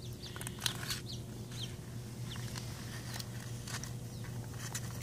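Faint short bird chirps, each a quick downward glide, with scattered small clicks over a steady low hum.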